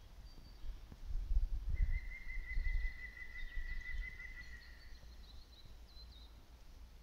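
Northern goshawk calling: one long, even, high-pitched call lasting about three seconds, starting about two seconds in. Faint chirps sound higher up, with low wind rumble on the microphone.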